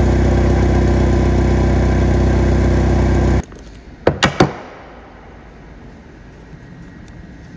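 Forklift engine running steadily at idle, which cuts off suddenly a little over three seconds in. Then about three sharp clicks of a hand tool on an aircraft wheel, then quiet.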